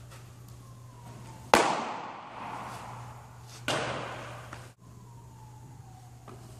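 A pitched baseball smacks sharply into a catcher's leather mitt about a second and a half in, ringing on in a long echo through the enclosed indoor cage. A second, slightly softer smack follows about two seconds later.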